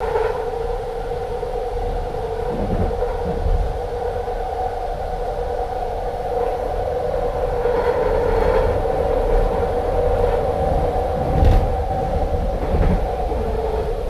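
A vehicle running steadily: a two-tone motor whine over a low rumble, with a few low thumps.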